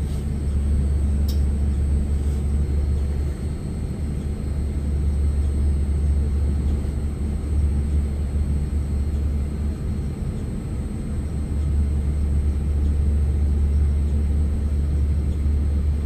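Steady low rumble with a faint constant hum, unchanging throughout. The outdoor unit's compressor is not running yet.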